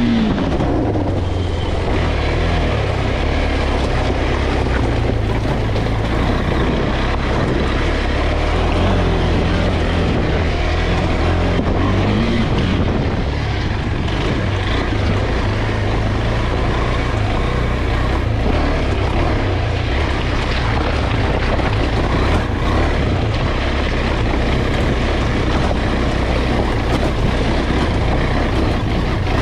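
KTM 390 Adventure's single-cylinder engine running at steady low revs on a rocky gravel trail, mixed with the rumble of the tyres on loose stones; the revs rise and fall briefly about nine seconds in and again about twelve seconds in.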